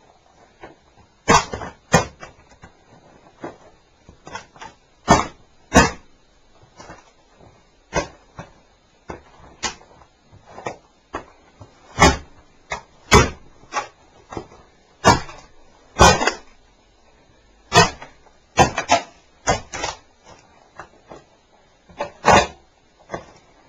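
Plastic body of a portable cassette recorder cracking and crunching under stomping boots: irregular sharp snaps and cracks, about a dozen loud ones among smaller crackles, with short pauses between.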